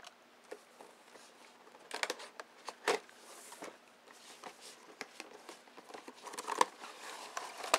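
Cardboard toy box opened by hand: the end flap is pulled open and the packaging inside is handled, rustling, with a few sharp clicks.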